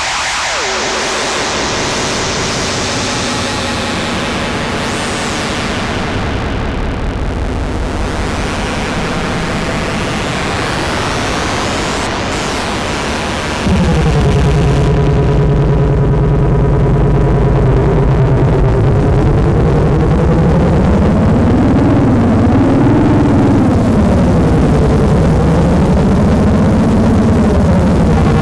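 Synthesized UFO sound effect: a shifting electronic hiss with sweeping tones, which about halfway through jumps louder into a low pulsing drone with wavering, warbling tones above it.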